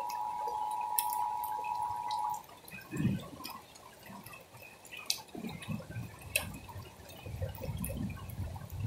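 Rain falling, with scattered sharp drips. A steady high hum runs for about the first two seconds and then cuts off. Low rumbling comes and goes through the rest.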